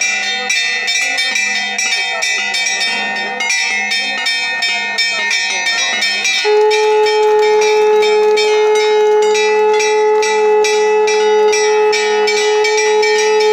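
Temple bells struck rapidly and continuously, ringing with many overlapping tones. About six and a half seconds in, as the shrine curtain opens for the arati, a conch shell joins with one long steady blown note held over the bells.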